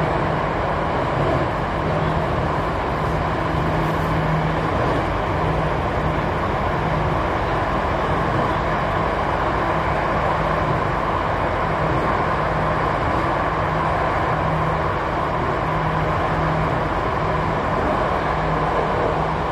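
Steady running noise inside a Jakarta MRT train car on the move: an even rumble and rush of wheels on rail and the moving car, with a low steady hum underneath.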